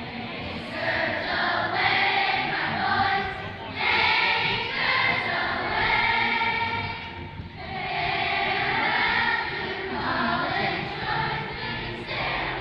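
Children's choir singing in unison, long sung phrases with brief breaks about four and seven and a half seconds in.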